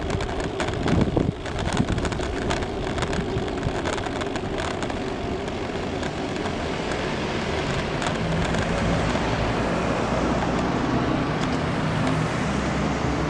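Steady wind and road noise from riding a Brompton folding bicycle on a city street, with light clicks in the first few seconds. From about the middle, a low car engine hum comes in and grows gradually louder.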